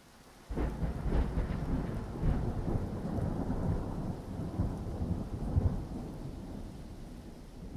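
Thunder over rain. A thunderclap breaks in about half a second in and rolls on as a heavy low rumble with several loud cracks, then slowly dies away near the end.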